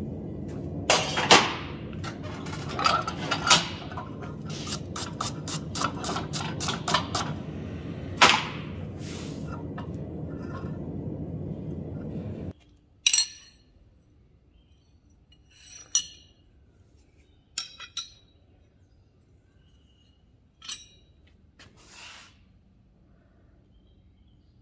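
Steel clanking as a twisting wrench is set on a red-hot square bar held in a bench vise and turned, with a quick run of light metal taps in the middle, over a steady low rumble. The rumble cuts off about halfway, and a handful of separate metal clinks follow.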